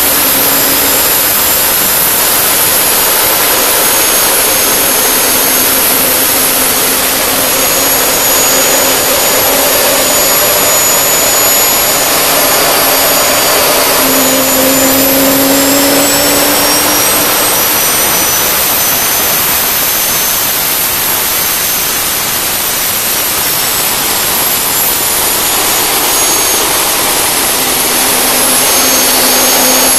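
Turbomeca Astazou gas turbine running steadily on a test bench: a loud even rush with thin high-pitched whines over it. About halfway through the whines and a low hum drift up in pitch for a few seconds, then settle.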